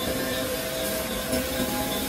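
Woodworking CNC router-lathe running, with a steady whirring noise and a held whine from the spindle and cutting.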